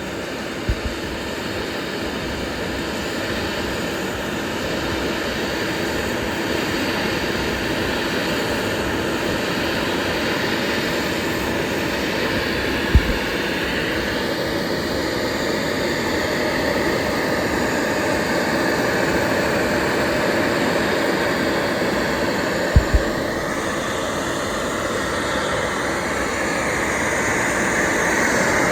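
CNC router spindle running at about 18,000 RPM with a 1/8-inch O-flute bit cutting plywood, a steady whine over continuous cutting noise. Three short low thumps are heard, about a second in, near the middle and later on.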